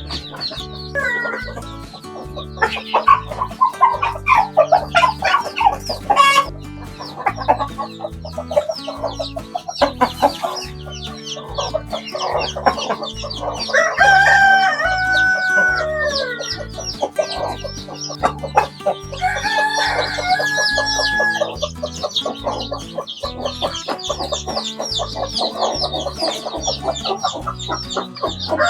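Chickens clucking throughout, with a rooster crowing twice: about halfway through and again some five seconds later.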